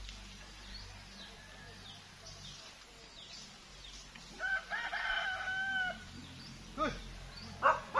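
A rooster crows once, a single call about a second and a half long starting about halfway through, with faint bird chirps before it. Two short, sharp knocks come near the end, the second the loudest sound of all.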